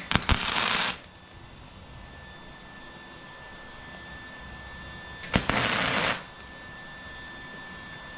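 Two short arc-welding tacks on square steel tubing, each a crackling hiss that starts sharply and cuts off after under a second: one right at the start, the other about five seconds in.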